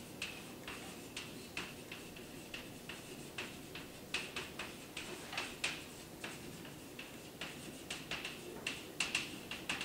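Chalk writing on a blackboard: a quick, irregular run of sharp taps and short scratches as the letters are formed, over a faint steady room hum.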